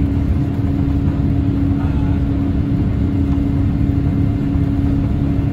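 Cabin noise of a Boeing 787-8 climbing out after takeoff: the steady rumble of its Rolls-Royce Trent 1000 engines and rushing air, with a constant hum running through it.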